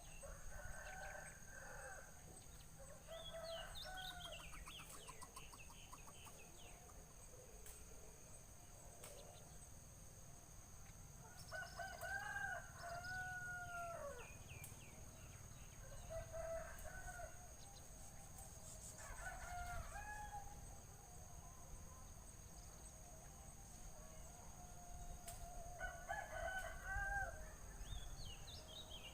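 Roosters crowing about six times, each crow a drawn-out call that rises and falls, the longest near the middle. Small birds chirp in between.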